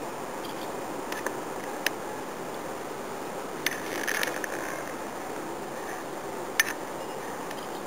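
Steady outdoor hiss with a few sharp separate clicks and a short patch of scuffling clicks about four seconds in.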